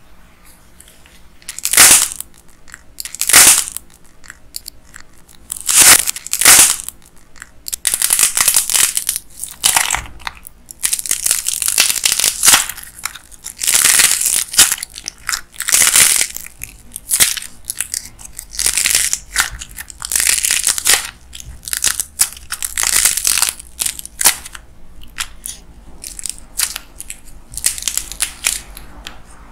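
Dried clay crust cracking and crunching as fingers squeeze and crush a soft clay piece. First a few separate loud cracks, then a long run of dense crackling that thins out near the end.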